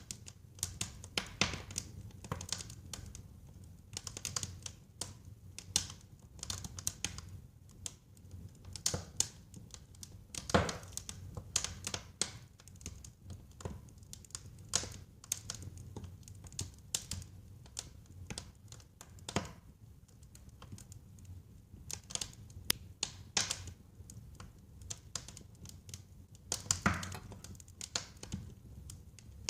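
Wood fire crackling in a fireplace: dense, irregular crackles and snaps over a low steady rumble of the flames, with a louder pop about a third of the way in and another near the end.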